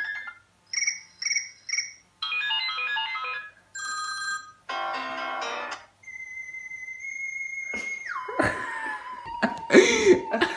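Electronic sound effects and jingles from a game on a mobile phone: three quick chirps, runs of beeping tones, then a long steady tone that drops in pitch about eight seconds in, followed by louder, noisy sounds near the end.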